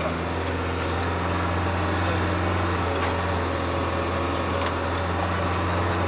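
Vehicle engine running steadily while driving slowly up a rough gravel track, a low hum with a couple of light knocks from the road surface, heard from inside the cabin.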